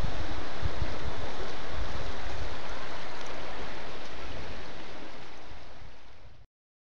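Rushing water of the St. Croix River in flood, a steady rush with wind buffeting the microphone. It fades out over the last few seconds and stops about six and a half seconds in.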